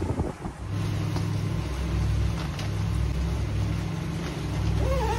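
Inboard engines of a 2006 Meridian 341 motor yacht cruising underway, a steady low drone that sets in under a second in.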